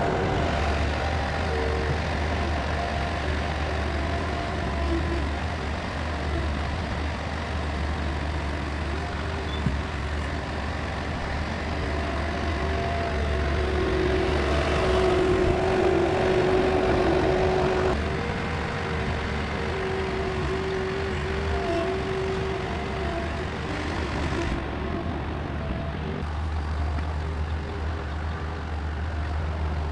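Bobcat 773 skid-steer loader's diesel engine running steadily under load, with a higher whine that comes and goes and is strongest around the middle.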